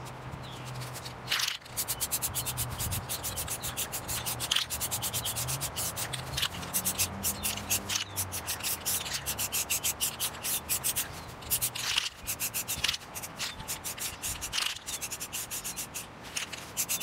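Aerosol spray-paint can hissing in quick, rapidly repeated bursts as black paint is sprayed onto an airsoft rifle's outer barrel, with a few longer sprays among them.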